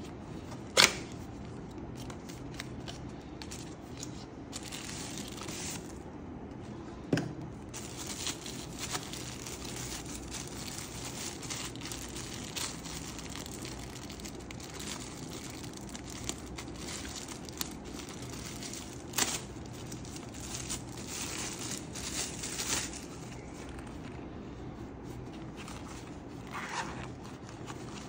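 Packaging being opened by hand: long stretches of tearing and crinkling wrapping, broken by a few sharp clicks, the loudest about a second in.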